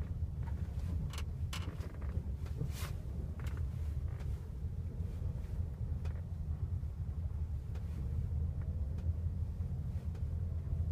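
Kia Sportage suspension squeaking: several short, sharp squeaks in the first few seconds and a few fainter ones later, over the car's steady low road and engine rumble.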